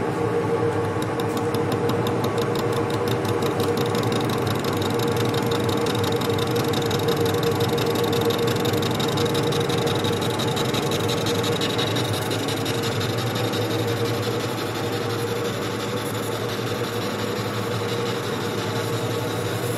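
NH22 centre lathe running with its chuck spinning: a steady gear-driven machine hum with a strong fixed mid tone, with light rapid ticking over the first few seconds.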